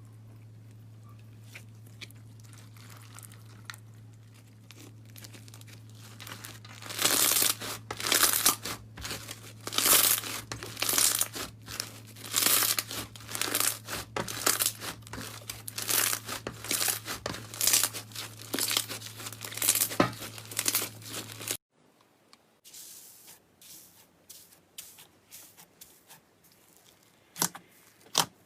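Slime being stretched and pulled apart by hand, making irregular crackling, tearing sounds over a steady low hum. The sounds stop abruptly about three quarters of the way through, leaving only faint squishes and a few sharp clicks.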